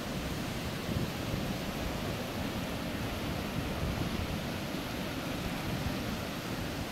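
Baltic Sea surf breaking and washing in over shallow sand: a steady rushing noise.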